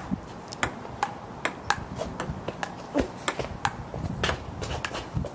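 Table-tennis rally: the ball clicking off paddles and the table in a quick, even run of sharp knocks, about two to three a second.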